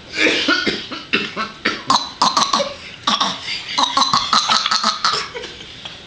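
A young child coughing on purpose in a fake cough, imitating an adult's cough. It is a long run of short, quick coughs, several a second, stopping about five seconds in.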